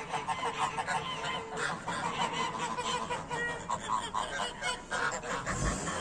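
A flock of domestic geese, white and grey-brown, honking and calling over one another in many short, repeated calls.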